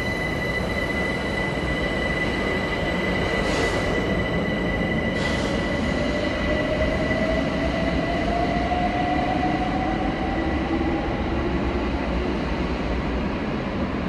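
London Overground electric train pulling out of an underground platform and accelerating away, its motor whine rising slowly in pitch over a steady rumble and a steady high tone. Two short hisses come about three and a half and five seconds in.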